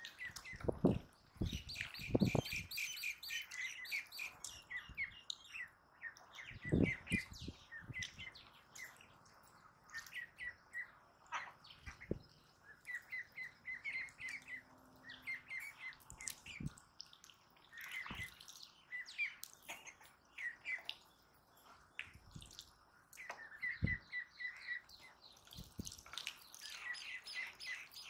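Young domestic ducklings peeping in quick runs of short, high chirps, several birds at once, with a few dull knocks now and then.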